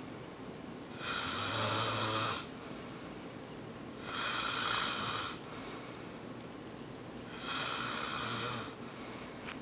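A person snoring: three snores about three seconds apart, each lasting a little over a second, with quieter breathing between them.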